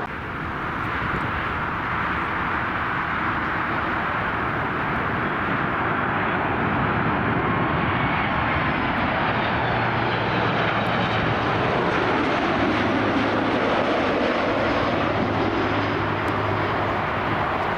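Jet airliner engines running loud and steady, a dense rush of noise with faint whining tones slowly falling in pitch.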